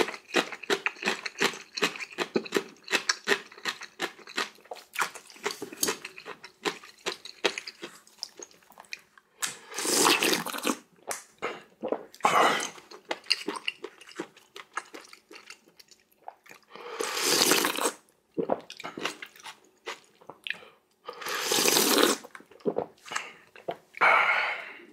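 Close-miked eating of noodles. First comes a run of quick wet chewing and mouth clicks, then five loud slurps, each about a second long.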